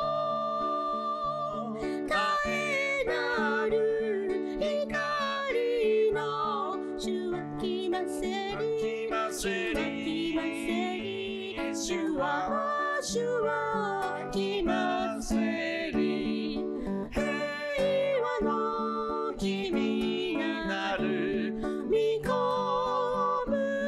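A song with a strummed acoustic string instrument and a voice singing a slow, wavering melody over it.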